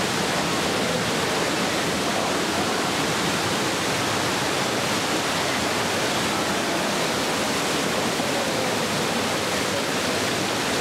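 Fast-flowing stream water rushing over and around boulders in a narrow rock gorge, a steady, unbroken rush.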